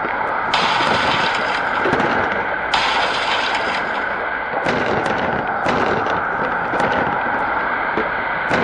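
Tornado sound effect: steady, loud wind noise with repeated sharp cracks like debris snapping and breaking. Two gusts of louder rushing hiss, each about a second long, come about half a second in and near three seconds in.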